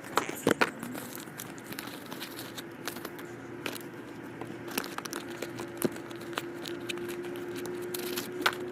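Belongings being rummaged through in a storage bin: plastic and bags crinkling, with scattered light clicks and knocks as items are handled.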